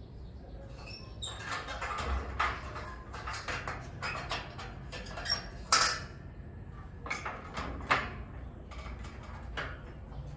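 Metal gate latch rattling and clanking in an irregular run of knocks as a baby monkey tugs and fiddles at it, with two sharper, louder clanks in the second half.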